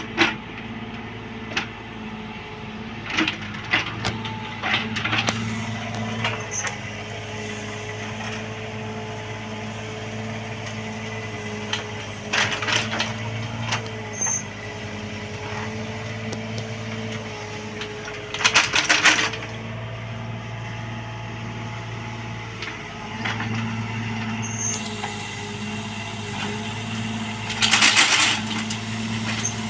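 Bobcat 322 mini excavator's engine running steadily while it works. There are short clattering bursts, the two loudest about two-thirds of the way through and near the end.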